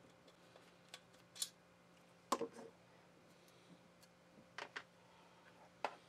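Scattered small clicks and taps of a screwdriver and wires being handled at an electric motor's terminal, about seven in all, the loudest a little past two seconds in, over a faint steady hum.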